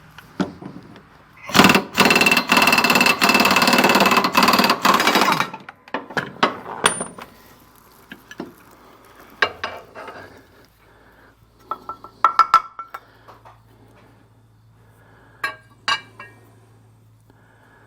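A power tool runs loudly for about four seconds, then hand tools and steel parts clink and tap against each other, in scattered knocks, while work goes on under a mower deck.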